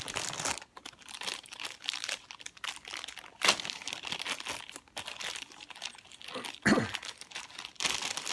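Packaging being handled and unwrapped, crinkling and crackling irregularly, with a sharp click about three and a half seconds in and a knock a little after six and a half seconds.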